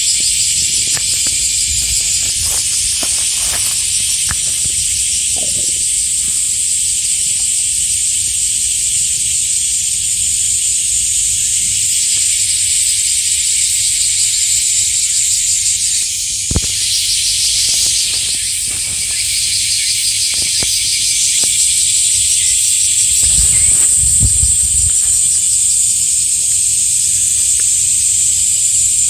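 A chorus of cicadas buzzing steadily and loudly, high-pitched with a fine pulsing texture. There is a single sharp click about halfway through.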